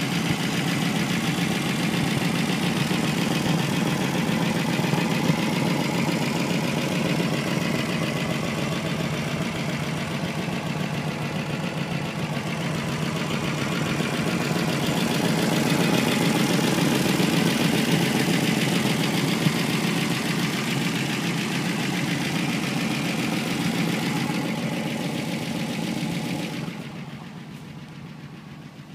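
1955 Ford Crown Victoria's engine idling steadily, heard from under the car beside the exhaust pipes. The sound drops noticeably quieter about two seconds before the end.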